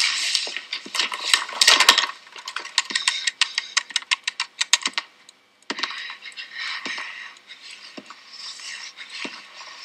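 A run of quick, light clicks and rattles, then hushed whispering into a corded telephone handset.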